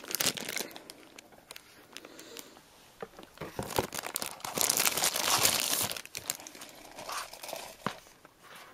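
Packaging crinkling and rustling as a small black gift box is taken out and handled. There are a few light clicks at first, and the loudest stretch of crinkling comes from about three and a half to six seconds in.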